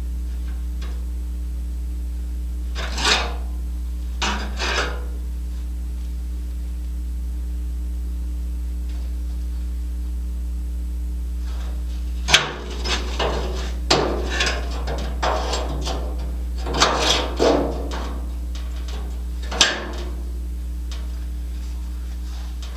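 Hand-tool work: scattered knocks, clanks and scraping, most of them in the second half, over a steady low hum.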